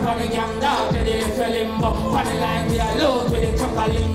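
Dancehall music with a steady beat playing loud through a concert sound system, with a voice rising and falling over it.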